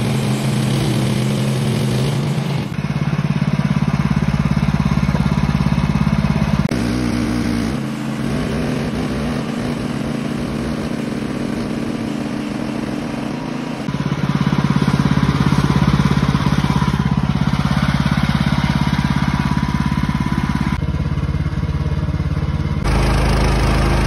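Woodland Mills HM126 portable bandsaw mill running on its Kohler gasoline engine, the band blade sawing through a wild cherry log. The engine drone is steady but changes abruptly in pitch and loudness several times.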